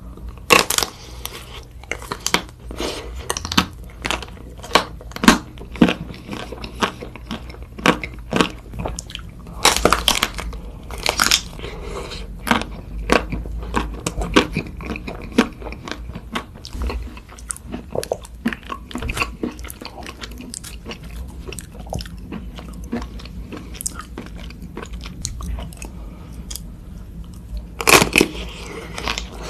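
Close-miked biting and chewing of Magnum ice cream bars: the hard chocolate-chip shell cracks in sharp crunches, with chewing in between. The loudest bites come about a second in, around ten seconds in, and near the end.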